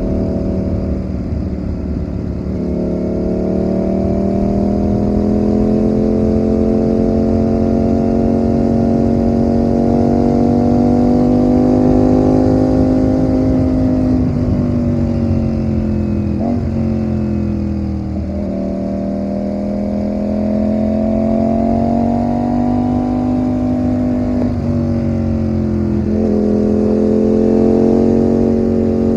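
Ducati Panigale V4 motorcycle's V4 engine running under way, its note climbing slowly through the first half, then falling away and climbing again. There are a few short breaks in the note in the second half.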